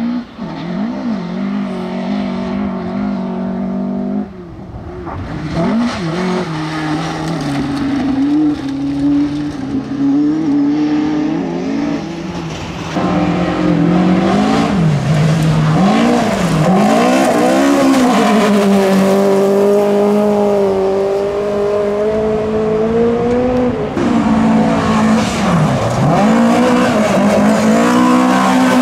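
Rally car engines at full throttle, their pitch rising and falling over and over with throttle lifts and gear changes as the cars slide through corners. The sound changes abruptly about four, thirteen and twenty-four seconds in, as if moving from one car to the next.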